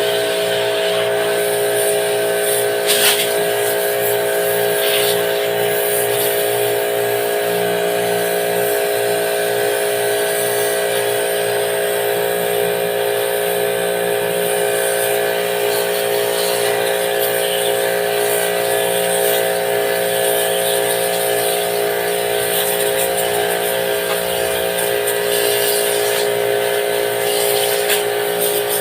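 Portable pressure washer running steadily during air-conditioner cleaning: a motor hum under a hissing spray.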